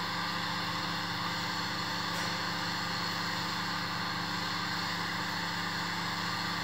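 Glassblower's bench burner flame burning with a steady hiss while borosilicate glass is heated in it, over a faint steady low hum.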